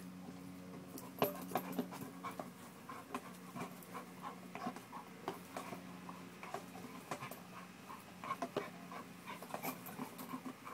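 American bulldog panting during exercise, with many short irregular clicks and taps over a steady low hum.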